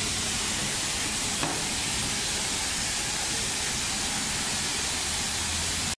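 High-pressure washer spraying water onto a truck: a steady, even hiss with a low hum underneath.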